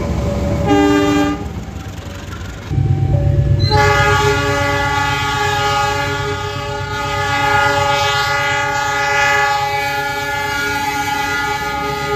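Indonesian locomotive air horn sounding the Semboyan 35 signal: a short chord-like blast about a second in, then a long held blast from about three and a half seconds in that carries on past the end. Underneath is the loud rumble of the passing train, which rises just before the long blast.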